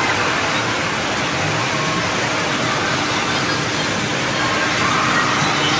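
Steady noisy din of an indoor amusement area, with a kiddie roller coaster car rolling along its track, growing a little louder near the end as it comes closer.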